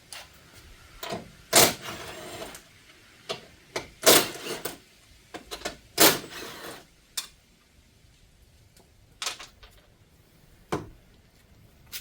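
Irregular clunks and knocks as a Commodore's front suspension strut is worked out of its tower: three loud ones about one and a half, four and six seconds in, and lighter knocks scattered between.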